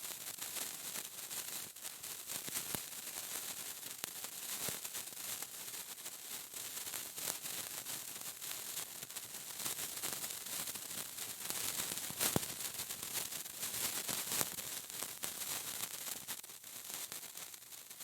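Lit sparkler burning with a steady fizzing hiss and dense crackle, with sharp pops here and there. It dies down near the end.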